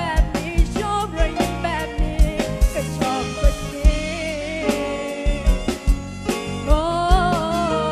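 Live band music: a steady drum beat and bass under a wavering lead melody.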